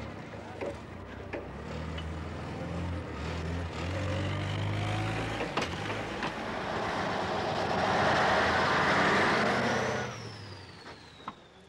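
A vehicle engine running steadily, with a loud burst of noise about eight seconds in and a whine falling in pitch as it dies away near the end.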